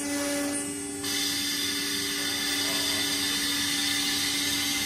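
Automatic-loading CNC router machinery running: a steady hum with a high hiss that swells about a second in.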